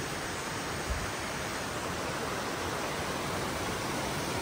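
Steady rushing of a waterfall that is running low on water, with a brief low bump about a second in.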